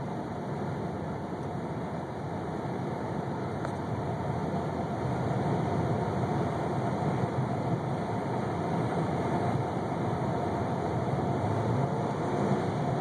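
1998 Toyota Camry engine running with a misfire, a steady rough drone that grows a little louder about five seconds in.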